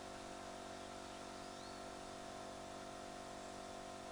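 Faint steady hum with several fixed tones over an even hiss, with no distinct event: a background noise floor.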